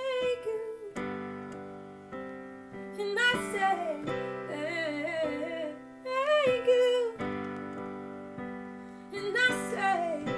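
A woman singing wordless melodic runs over piano chords, each chord struck and left to ring and fade before the next.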